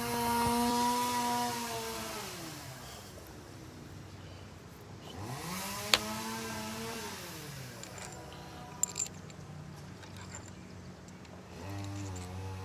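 Small cordless power tool motor driving in the bolts of a new timing chain tensioner, run three times: each burst spins up, holds steady and winds down, with a sharp click in the middle of the second burst.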